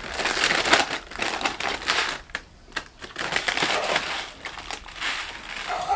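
Plastic snack packet of aloo bhujia crinkling and crackling as it is handled, in irregular bursts with a short lull in the middle.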